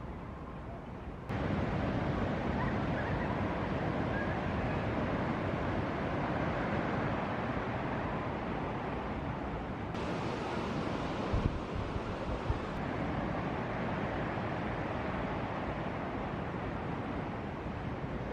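Ocean surf breaking on the reef, a steady wash of noise with wind buffeting the microphone and a few low thumps. The sound jumps suddenly louder about a second in.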